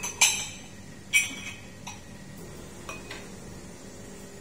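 Ceramic espresso cup clinking against the metal drip tray of an espresso machine as it is set in place: two sharp, ringing clinks in the first second and a half, then a few lighter taps, over a low steady hum.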